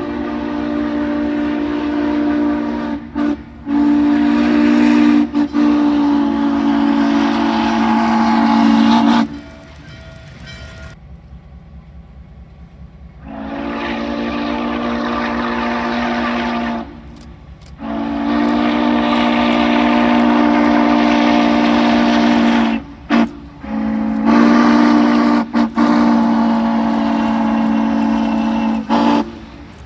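Steam locomotive's chime whistle sounding a chord of several steady tones in long blasts: one of about nine seconds, then after a pause of about four seconds three more long blasts with short breaks between them. A fainter low rumble runs under the whistle and fills the pause.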